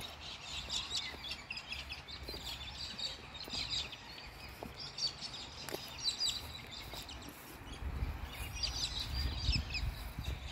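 Many small birds chirping in quick, high, repeated calls from the trees. A low rumble swells near the end.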